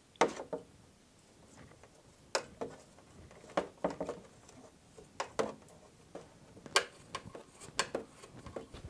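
Irregular metallic clicks and clinks of small bolts and spacer nuts being turned with a hex key against a thin sheet-aluminium box bolted to a bicycle frame.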